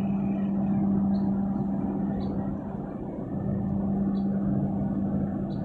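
Steady low engine rumble with a constant deep hum from ship engines close by, as a large LPG tanker and its tug move past. The hum dips for a moment about halfway through.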